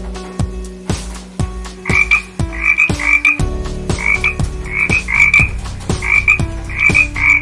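Frog croaks, in repeated quick pairs, over instrumental backing music with a steady beat. The croaks start about two seconds in and come in short runs to the end.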